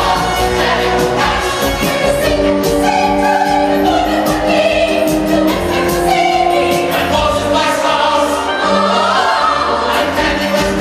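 Musical-theatre song played for the dancers: a choir of voices singing over an orchestral backing, continuous and steady in loudness.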